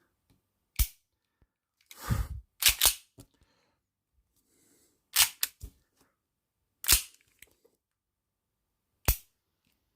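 Sig Sauer 1911 Emperor Scorpion full-blowback CO2 BB pistol firing single shots, each a sharp crack with the slide cycling. There are about eight cracks spaced irregularly, some in quick pairs.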